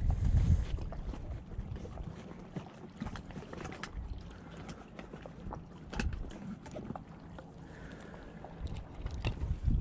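Wind buffeting the microphone in low gusts, strongest at the start, about six seconds in and near the end, with scattered light clicks and rustles.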